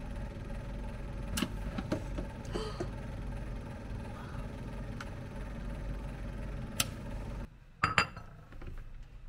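Kmart mini air fryer running with a steady fan hum and a few light clicks. The hum cuts off suddenly about seven and a half seconds in, followed by a short clatter.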